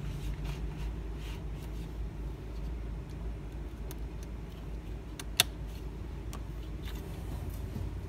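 DDR4 SO-DIMM memory module being released from a laptop's RAM slot: a few faint plastic and metal ticks from handling, then one sharp click about five and a half seconds in as the slot's retaining clips let the module spring up. A steady low hum runs underneath.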